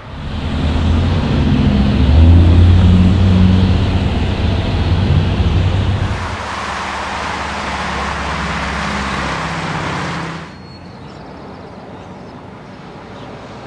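Road vehicle sounds in three cut segments. First, a loud engine with deep, steady tones for about six seconds. Then steadier road and engine noise from driving at night. About ten seconds in, this drops to quieter traffic sound.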